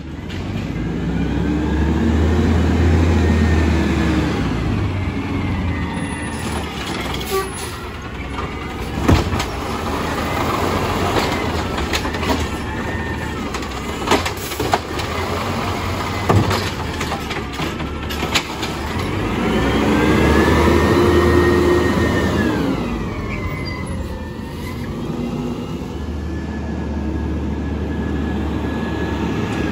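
CNG Peterbilt garbage truck with an Amrep automated side-loader arm working curbside carts: the engine revs up and falls back twice with a rising-then-falling whine as the hydraulic arm cycles. Sharp bangs of carts being dumped and set down come about a third of the way in and again around halfway.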